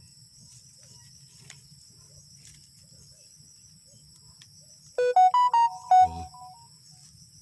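Steady high chirring of crickets, and about five seconds in a loud, short electronic jingle of six or so stepped notes, rising and then settling, like a phone ringtone or notification tone.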